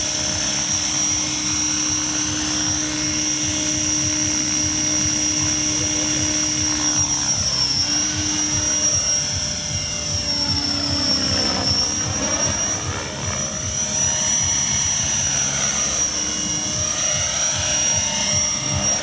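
Radio-controlled model helicopter flying, with a steady high-pitched whine and rotor drone. From about seven seconds in, the sound takes on a swirling, sweeping quality as the helicopter climbs away and moves about.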